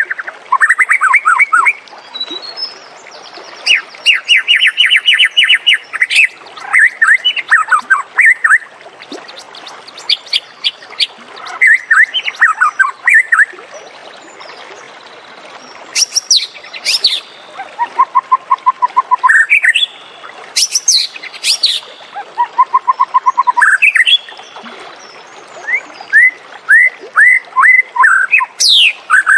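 White-rumped shama (murai batu) singing: loud, varied phrases of rapid whistled notes, sweeps and trills, each a second or two long with short pauses between.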